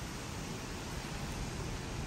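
Heavy storm rain falling, a steady even wash of noise with no breaks.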